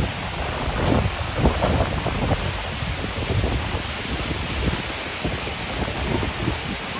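Tall waterfall pouring down onto rocks: a steady, loud rushing of water, with low, irregular gusts of wind on the microphone.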